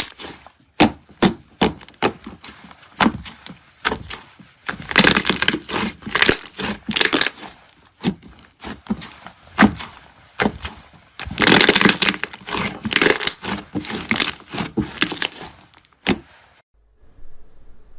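Slime being squeezed and pressed by hand, giving sharp crackling pops and clicks in dense runs; it stops suddenly near the end.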